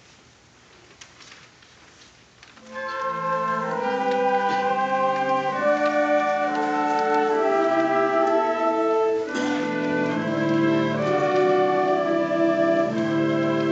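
High school wind symphony (concert band) playing: after a hushed pause of about two and a half seconds, the full band comes in with sustained chords that shift from one held chord to the next.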